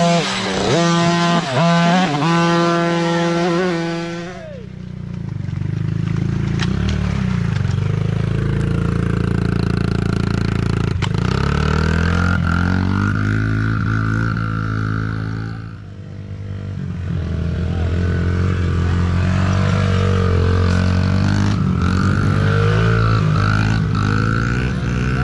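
Mini dirt bike engines revving hard. For about the first four seconds a high-pitched engine revs up and down quickly as a bike passes close by. After that, a lower engine revs up and down steadily while a small dirt bike works its way up a muddy climb, easing off briefly about two-thirds of the way through.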